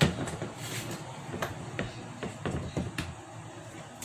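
Scattered light clicks and knocks of a screwdriver, screw and aluminium sliding-door frame pieces being handled and fitted together, with a sharper knock right at the start.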